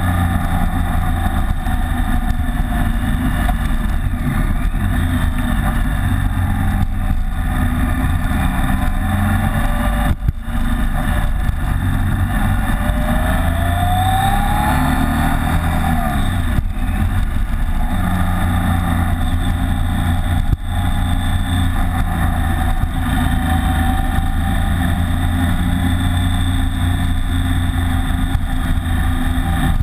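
BMW K75's three-cylinder engine running steadily under way, picked up by a windshield-mounted camera together with rushing wind. The engine pitch rises and falls through the bends. There are two brief drops in sound, about ten and twenty seconds in.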